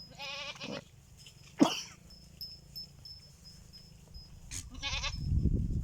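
Goats bleating: a short quavering bleat just after the start, a brief sharp cry about a second and a half in, and another quavering bleat near the end, followed by a low rumbling noise.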